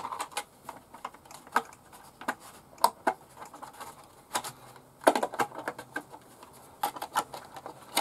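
Plastic body shell of an Arrma Granite Grom RC truck clicking and rattling as it is pressed and worked down onto the chassis by hand: an irregular run of sharp clicks and taps, the loudest about three, five and seven seconds in.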